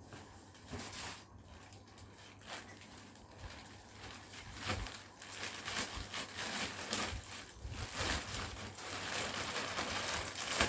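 Rustling and crinkling of a bag being handled, in irregular short strokes that grow busier and louder through the second half.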